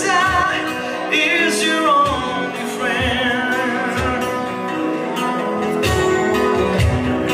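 A man singing a slow rock ballad while strumming an acoustic guitar. A cajon keeps the beat with low thumps.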